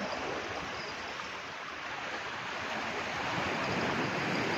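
Sea surf washing, a steady hiss that swells slightly toward the end.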